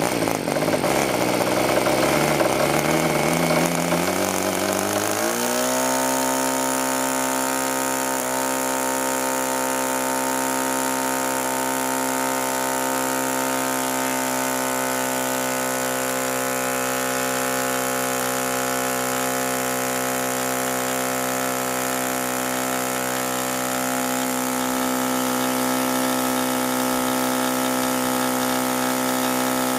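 MVVS 8cc (.49) two-stroke glow engine swinging a 13x5 Zinger prop, running extremely rich just after a cold start: for the first five seconds its pitch wavers low and uneven. It then picks up and settles into a steady rich four-stroke at about 7,700 rpm.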